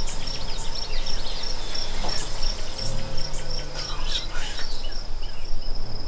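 Crickets chirping in a steady, evenly pulsed rhythm of about three chirps a second, high-pitched, with a few short bird chirps mixed in.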